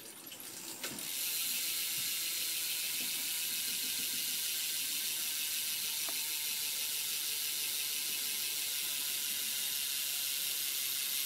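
A stock BMX rear hub freewheeling, its pawls clicking so fast that they run together into a steady buzz as the rear wheel spins. The clicking picks up over the first second, then holds steady.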